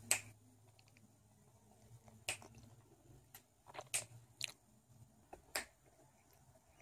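Faint, scattered clicks and ticks, about eight at irregular intervals, from a Carver surfskate with CX trucks as a barefoot rider rocks and shifts his weight on it.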